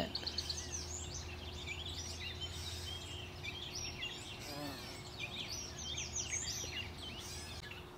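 Several songbirds singing and chirping at once, a dense run of quick high notes and trills, over a faint steady low hum.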